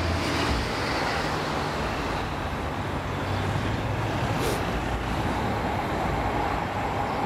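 GM G12 diesel-electric locomotive approaching at speed, its diesel engine droning under a steady rumble of wheels on the rails.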